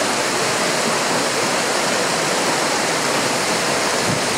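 Water rushing over a small stepped weir in a stream: a steady, loud rush of falling water.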